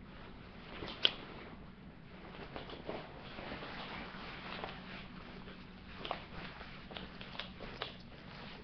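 Waxed cotton jacket rustling and crinkling as it is pulled on and shrugged into place, with a sharp click about a second in and a few lighter clicks later on as the front is fastened.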